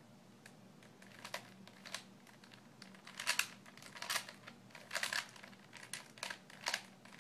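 Plastic Rubik's cube layers being turned by hand: irregular runs of sharp clicking and clacking as the faces snap round, starting about half a second in, while a corner-swapping move sequence is worked through.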